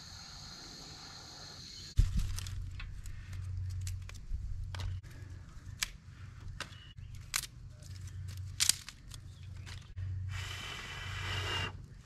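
Lighting a campfire in a metal fire ring: a run of sharp clicks and scrapes from hand tools on wood and tinder, over a low rumble. Near the end comes a steady hiss lasting about a second and a half.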